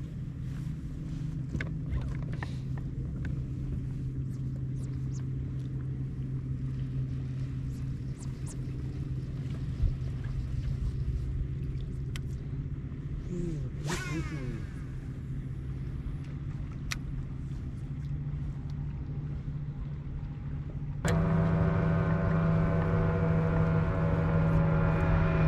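Bass boat's electric trolling motor humming steadily, then stepping abruptly to a louder, fuller hum about 21 seconds in as its speed is turned up. Light clicks and a short sweeping sound about 14 seconds in come from the fishing tackle.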